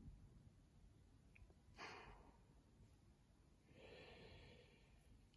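Near silence with two faint breaths: a short, sharp one about two seconds in and a longer, softer exhale around four seconds.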